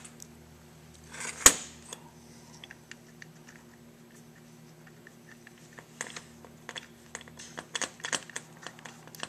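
Metal parts of a tractor carburetor being handled on a steel workbench: one sharp clack about a second and a half in, then a run of small clicks and taps as the cast carburetor body and a small brass fitting are worked by hand.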